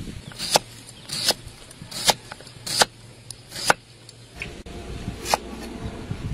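Kitchen knife slicing through an onion and knocking on a wooden cutting board, five sharp chops about three-quarters of a second apart. A few seconds in, a steady low background hum rises and the chops thin out to one or two.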